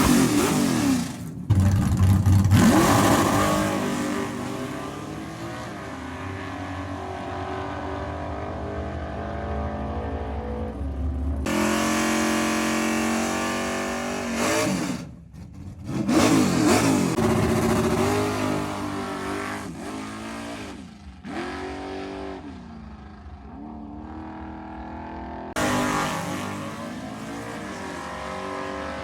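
Ford Mustang SVT's V8 engine and exhaust revving and accelerating, its pitch climbing and dropping with each pull and shift, in several short clips joined by abrupt cuts.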